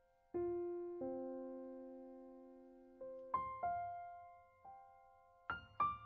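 Background piano music: chords and single notes struck a second or more apart, each left to ring out and fade.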